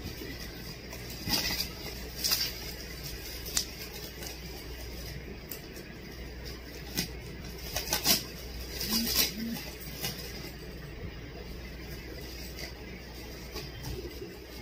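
Plastic wrapping rustling and crinkling in short, irregular bursts as a packed item is unwrapped by hand, over a steady low hum.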